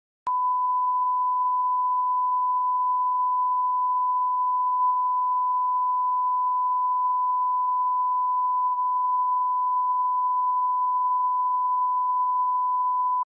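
Steady 1 kHz line-up tone, the reference tone that runs with SMPTE colour bars at the head of a broadcast spot. It starts with a click just after the start, holds one unchanging pitch and level, and cuts off suddenly just before the end.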